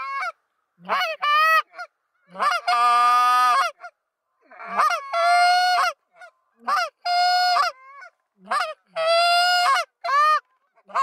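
Canada geese honking: a series of loud honks, some drawn out for about a second, others short and clipped.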